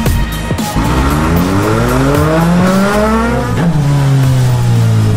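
Vehicle engine sound effect over music: the engine pitch climbs steadily for about three seconds, then drops sharply about three and a half seconds in, as in a pass-by.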